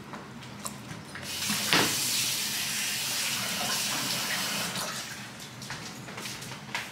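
Kitchen tap running into a sink: water comes on with a click about a second in, runs steadily for roughly three and a half seconds, then stops.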